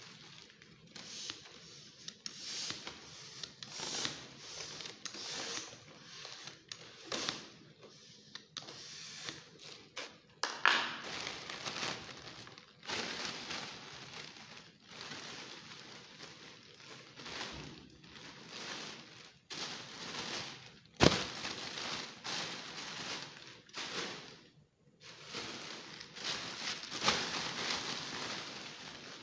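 Mylar foil balloon crinkling and rustling as it is filled with a plastic hand pump and handled. Through the first ten seconds there is a string of short rustling strokes about one a second, and one sharp click comes about two-thirds of the way through.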